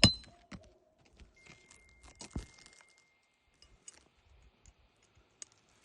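Faint, scattered clicks and gritty crunches of a roofing tool and asphalt shingles being handled on a roof, with one sharper knock about two and a half seconds in.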